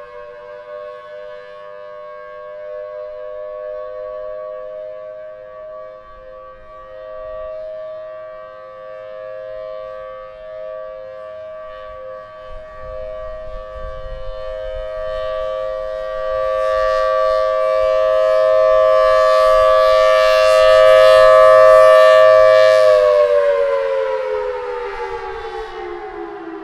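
Federal Signal Thunderbolt 1003 outdoor warning siren sounding a steady tone, two close notes together, swelling in loudness with a rush of air as its rotating horn swings round toward the microphone. About three-quarters of the way through, the pitch begins to fall steadily as the siren winds down.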